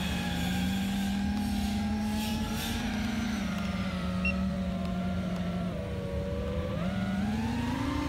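FPV freestyle quadcopter's brushless motors and propellers whining over a low rush of air, the pitch following the throttle: a steady tone steps down a little past the middle, then climbs sharply near the end and starts to fall back.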